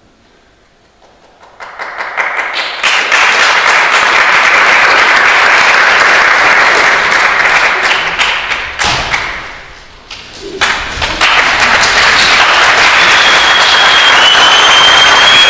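Audience applause that breaks out about a second and a half in and quickly builds to full clapping. It thins out briefly about ten seconds in, then picks up again.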